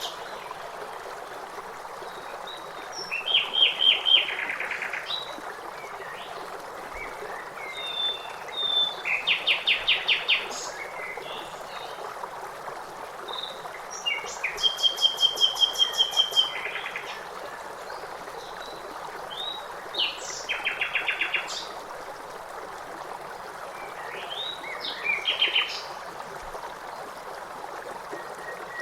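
Songbirds singing short, fast trilled phrases, one roughly every five or six seconds, over the steady rush of flowing water.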